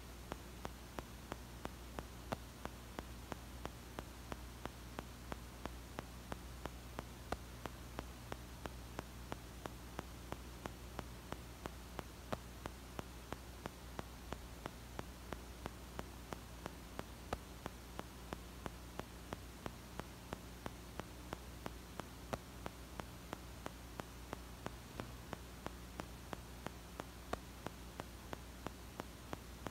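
Steady low electrical hum with hiss, and faint even ticks about three times a second.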